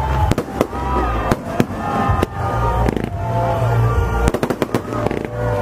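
Fireworks display: rockets going off in an irregular string of sharp bangs and crackles, several a second.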